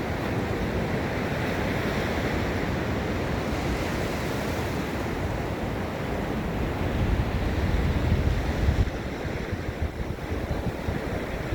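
Gulf of Mexico surf washing steadily onto the beach. A louder low rumble swells about seven seconds in and drops off near nine seconds, with wind noise on the microphone.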